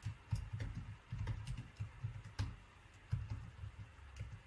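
Typing on a computer keyboard: an irregular run of keystrokes, each a short click with a dull thump under it.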